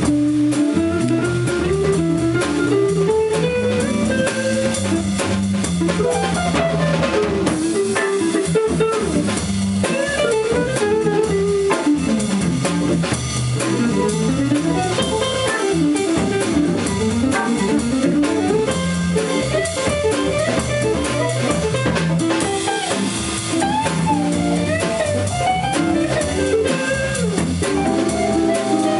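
Live jazz guitar combo playing: two archtop electric guitars, one picking a fast single-note solo line over the other's chords, with a drum kit keeping time.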